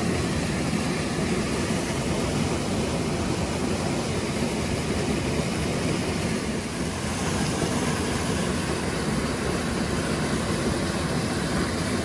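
Mountain stream water rushing over rocks, a steady, even rush.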